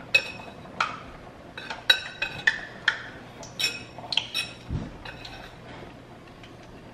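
Wire whisk clinking against a glass mixing bowl as it stirs dry flour and seasonings: irregular sharp clinks that ring briefly, tailing off over the last second or so.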